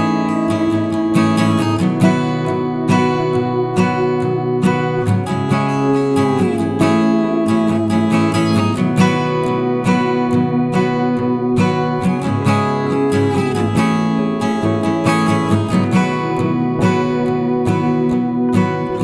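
Background music: a strummed acoustic guitar, played steadily with no singing.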